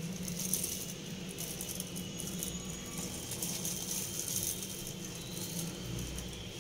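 A disposable plastic glove crinkling and rustling with dense small crackles as a gloved hand works flour-dusted chicken through dry flour and into a bowl of water.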